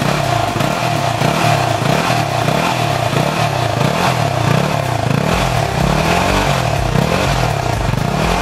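Yamaha WR250X's 250 cc single-cylinder four-stroke engine running, heard at its exhaust, its pitch rising and falling over and over.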